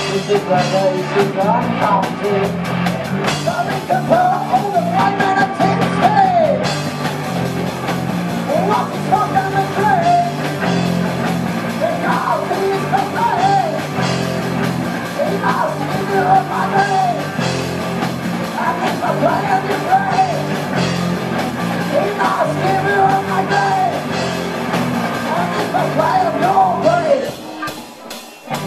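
Live rock band playing: a lead vocalist singing over two electric guitars, bass guitar and a drum kit. The band stops for a brief break near the end, then comes back in.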